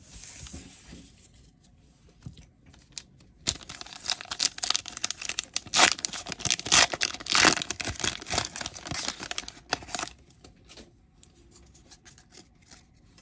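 Foil trading-card booster pack being torn open and crinkled by hand, a dense crackling run from a few seconds in until about ten seconds in. Faint handling of the card stack follows near the end.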